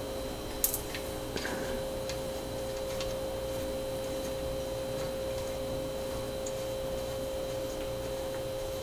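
Friction down-tube shifter parts being unscrewed by hand: a few faint metallic clicks, the loudest about half a second in. A steady humming tone runs underneath throughout.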